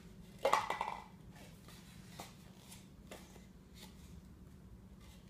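Light clicks and taps of styrofoam cups being set down and stacked on a hardwood floor, with a brief louder squeak-like sound about half a second in, over a low steady hum.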